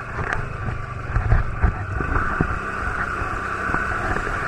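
Quad bike (ATV) engine running steadily while the machine is stuck nose-down in a muddy water-filled rut, with a few short knocks about a second in.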